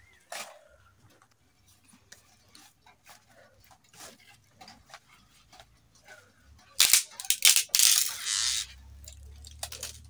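A wooden cooking stick scraping and knocking against a metal pot on a charcoal stove: a loud, rough clatter of scrapes lasting about a second and a half, about seven seconds in, after soft scattered clicks.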